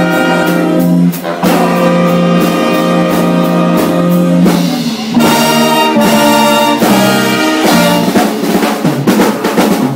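Jazz big band playing, the brass section of trumpets and trombones holding full chords. The sound drops out briefly about a second in and again just before the middle, and the last few seconds turn to short, punchy chords.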